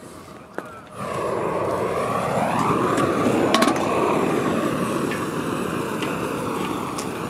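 Propane torch lit and burning with a loud, steady roar, starting suddenly about a second in.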